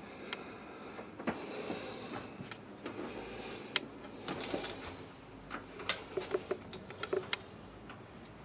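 Faint handling and movement noise: scattered small clicks and knocks, thickest in the middle and latter part, with short bursts of soft rustling.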